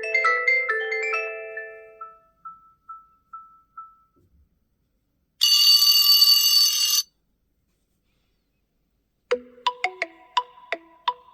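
OnePlus 11 ringtones playing. A mallet-like melody ends in one note echoing and fading away. About halfway through comes a brief bright shimmering tone, and near the end a new ringtone starts with quick, sharply struck repeated notes.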